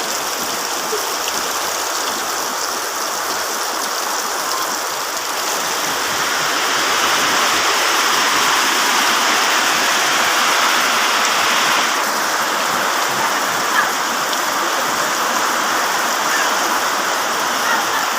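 Heavy rain pouring down in a dense, steady hiss that swells and grows louder about six seconds in.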